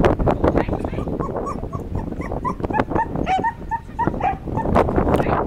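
A dog whining and yipping: a quick string of short, high-pitched notes lasting about three seconds, over wind noise on the microphone.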